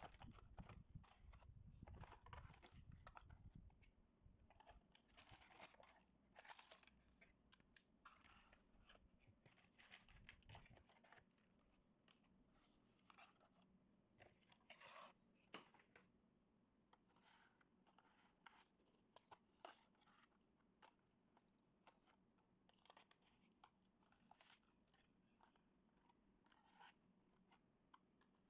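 Faint, irregular rustling, scraping and clicking of cardboard-backed plastic blister packs being handled, taken out of a cardboard box and laid down, with a low rumble during the first ten seconds or so.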